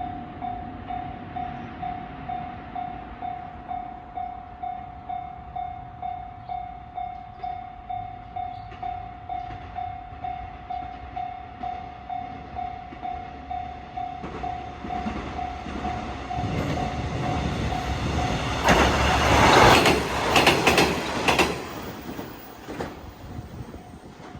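A level crossing's warning bell rings steadily at about two strokes a second. About 18 seconds in, a train passes over the crossing for about three seconds with loud wheel clatter, then fades away while the bell keeps ringing.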